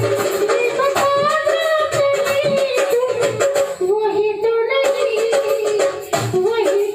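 A man singing into a handheld microphone, with instrumental backing music.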